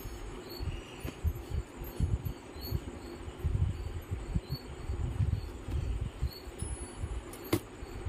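Hands handling a desktop motherboard and processor: low, irregular rustles and bumps, with one sharp click near the end. A faint, evenly repeating high chirp runs underneath.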